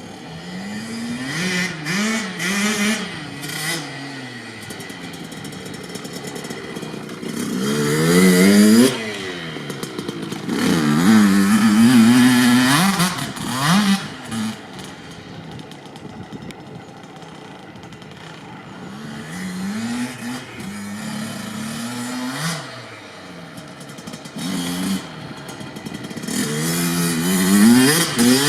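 Kawasaki KX65 single-cylinder two-stroke dirt bike being ridden, its engine revving up and down in quick climbs of pitch and letting off again. Several loud stretches of hard revving are broken by a quieter, steadier stretch in the middle.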